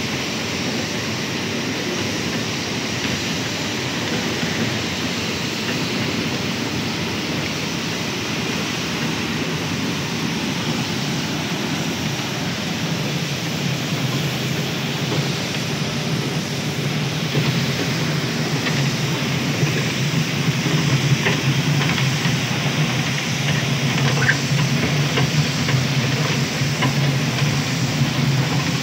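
Steady din of palm oil mill machinery, with a low hum that grows stronger in the second half and scattered light clicks and rattles as a screw conveyor churns palm nuts through its trough.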